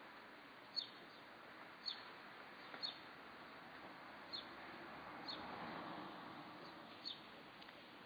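A small bird chirping over and over: short, high, falling chirps about once a second, over a faint rushing background that swells and fades around the middle.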